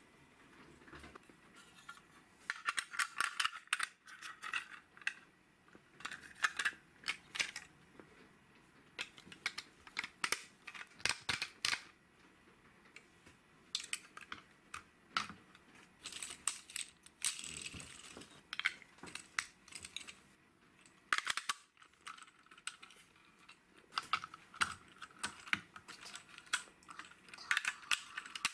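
Large plastic toy bricks and vehicle parts clicking and clattering as they are handled and snapped together, in irregular clusters of quick clicks.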